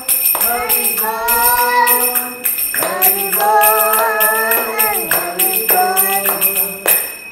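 Devotional arati singing in long held phrases, with a hand bell rung steadily in a quick regular beat, about three to four strikes a second. Singing and bell stop near the end.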